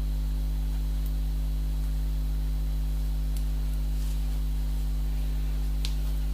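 Steady electrical mains hum, a low drone with a ladder of overtones, with a few faint light clicks.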